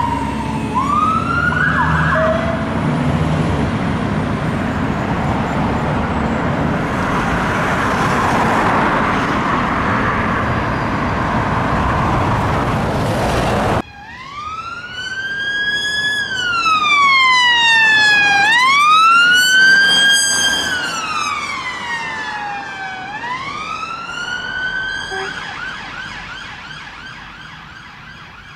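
A fire engine's siren wails down and winds off in the first few seconds, leaving dense engine and road noise. After a sudden cut, a police car's siren wails slowly up and down in long sweeps, switches to a faster yelp near the end, and fades as the car moves away.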